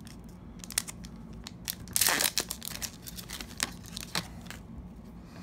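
Foil wrapper of a hockey card pack crinkling and tearing as it is opened, with scattered sharp crackles and one louder burst of crinkling about two seconds in.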